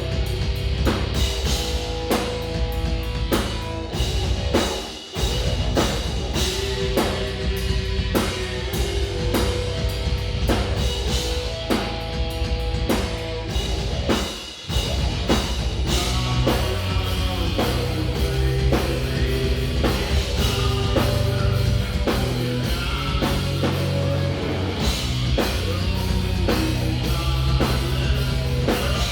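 Live progressive metal band playing: distorted electric guitars, bass and a full drum kit, with two short breaks in the sound about five seconds in and near the middle.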